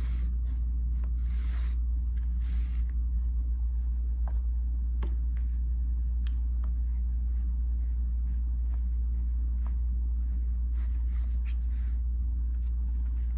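Steady low hum throughout, with a few short rustles in the first few seconds and scattered faint ticks: the thread and needle being worked through the embroidery.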